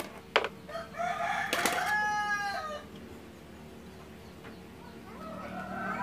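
Rooster crowing once, a single long call of about two seconds. A sharp click comes just before it, and a fainter call is heard near the end.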